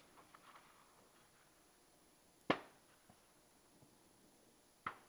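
Near silence with faint hiss, broken by two short, sharp clicks: a loud one about halfway through and a softer one near the end.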